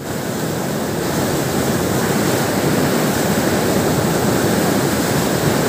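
Loud, steady rush of a mountain river in flood, muddy floodwater churning through rapids and standing waves; the river is swollen by days of continuous rain.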